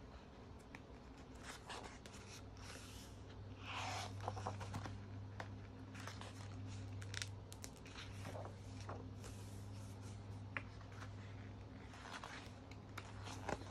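Pages of a large photobook being turned by hand: paper rustling and sliding in short swishes with light taps, the loudest swish about four seconds in. A low steady hum runs underneath.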